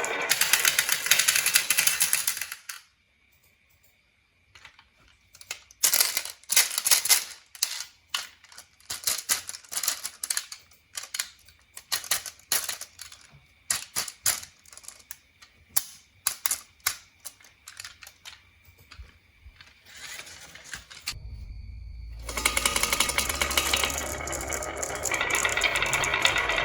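Marbles rolling and clacking down a toy marble run. A dense rattle opens it, a short pause follows, then a long series of separate clicks and knocks. About 21 seconds in, a steadier, denser rattle with a low hum begins.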